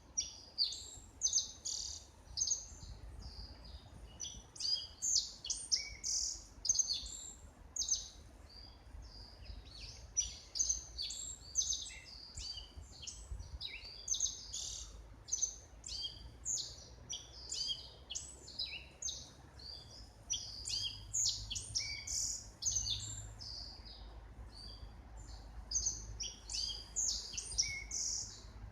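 Small songbirds chirping and calling in quick, overlapping high-pitched notes without a pause, over a faint low rumble.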